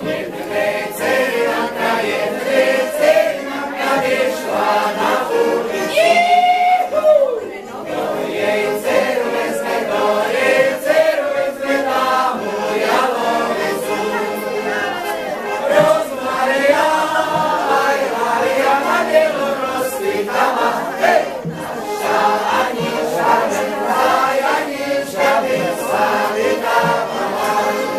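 A folk group of men and women singing a folk song together in chorus, with accordion accompaniment.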